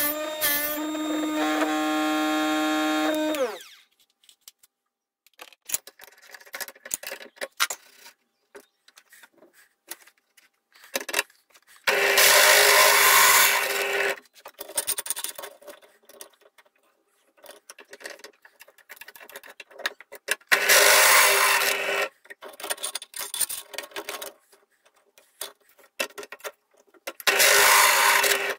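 A Sealey bench drill-bit sharpener's motor runs steadily for about three and a half seconds, then stops. After that a pillar drill cuts into a thin stainless steel plate in three short bursts of a second or two each, with small clicks and rattles between them.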